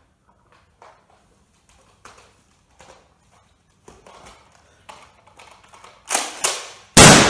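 Faint scattered taps and shuffles of movement, then near the end a few loud gunshot-like blasts. The last one is the loudest and trails off over most of a second.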